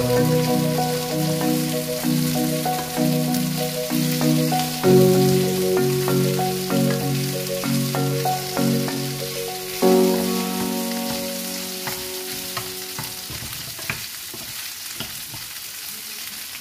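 Shrimp frying in garlic butter in a pan, a steady sizzle with the scrape and tap of a wooden spatula stirring. Background music plays with it and fades out about three-quarters of the way through, leaving the sizzle alone.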